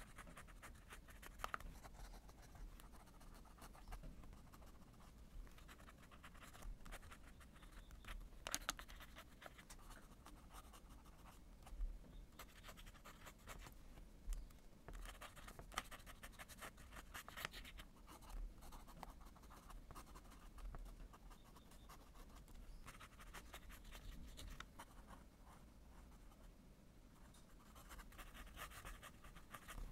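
Faint scratching of a Lamy fountain pen's nib on journal paper as cursive is written by hand, in short stretches of strokes with small ticks as the nib lifts and touches down.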